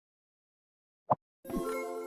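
A short click, then a brief musical chime of several held tones that starts bright and fades away over about a second.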